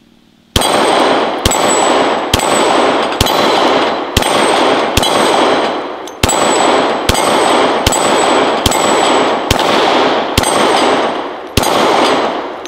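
Thirteen shots from a 10mm Glock 20 pistol firing 180-grain American Eagle ammunition, starting about half a second in and coming about one a second. After each shot comes the ringing clang of the steel dueling-tree plates being hit.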